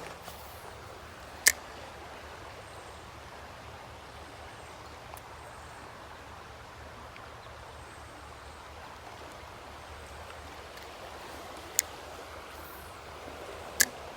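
Creek water running steadily into a pool, an even rushing hiss. Three sharp clicks stand out: one about a second and a half in and two close together near the end.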